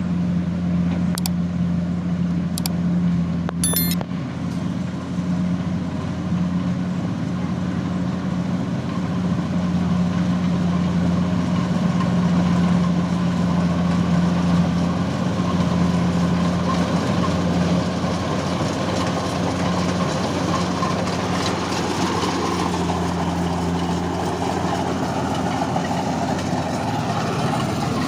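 Engine of a farm machine running steadily at a constant speed, with a few sharp clicks in the first few seconds.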